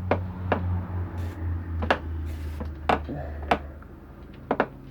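Diesel injector on a hand-lever pop tester being pumped, giving a series of sharp, irregularly spaced clicks with no chatter. This is a Mercedes OM617 injector that streams instead of spraying a fine mist, a sign that it needs rebuilding. A steady low hum runs underneath for the first three and a half seconds or so.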